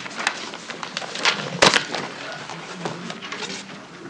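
People getting up and moving about in a meeting room: a few sharp knocks, the loudest a little under two seconds in, over a low murmur of activity.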